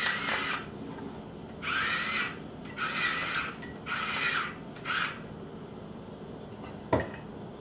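Pepper grinder grinding peppercorns in four short bursts about a second apart, then a single sharp knock near the end.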